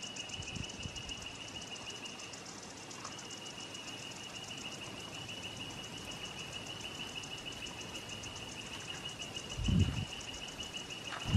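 Insects making a steady high-pitched drone, with a fast pulsing buzz above it that dips briefly about two and a half seconds in. A low thump near the end.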